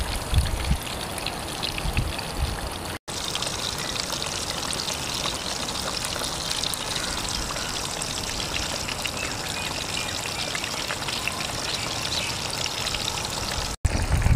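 Breaded chicken cutlets deep-frying in hot oil: a steady sizzle with fine crackling. It drops out for an instant twice, about three seconds in and near the end.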